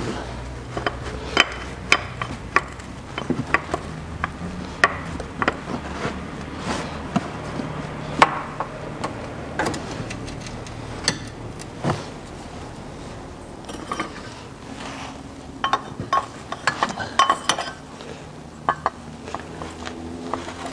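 Irregular metallic clicks and clinks of pliers working a spring hose clamp as a transmission oil hose is worked off the external CVT oil filter, over a low steady hum.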